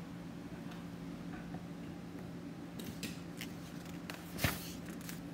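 Paper rustling and crisp ticks as a hand handles and turns the pages of a paperback graphic novel, with one sharp swish about four and a half seconds in, over a faint steady low hum.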